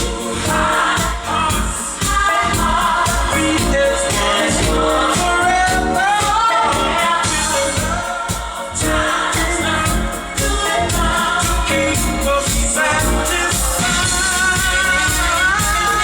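A pop song with singing, played through a Behringer NU3000 power amplifier under test after repair.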